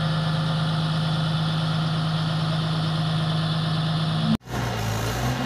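Heavy diesel tipper truck's engine running at a steady speed, a constant hum with overtones. It cuts off abruptly about four seconds in, and a different, lower-pitched engine hum follows.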